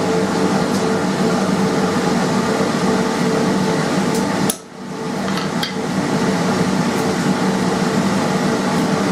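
Ball-peen hammer striking a hand-forged steel centre punch held on the anvil, testing the punch's temper: a few sharp metallic taps, the strongest about four and a half seconds in. Under them runs a steady motor hum.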